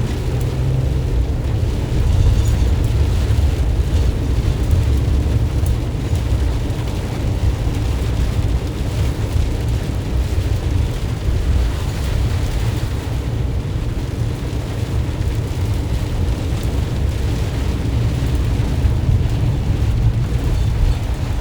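Cab interior of a 2020 Ram ProMaster cargo van being driven through heavy rain: a steady, deep engine and road rumble, with a hiss of rain and tyre spray above it.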